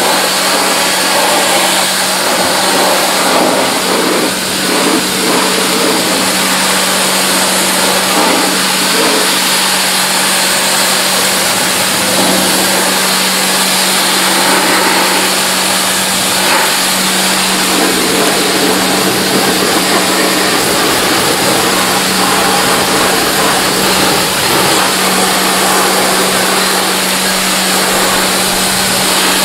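Pressure washer blasting a steady jet of water onto a mud-caked car body, a continuous hiss and spatter of spray, over the steady hum of the washer's pump motor.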